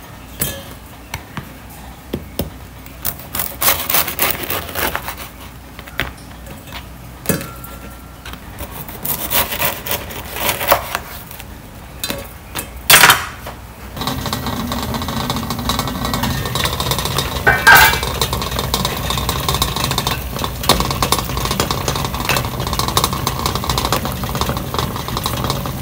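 A knife saws through a crusty baguette on a bamboo cutting board, with crackling crust and sharp knocks of the blade and bread on the board. About halfway through the sound changes to the steady rush of a pot of water boiling on a gas stove, with soft handling of bread slices and a clink against the steel pot.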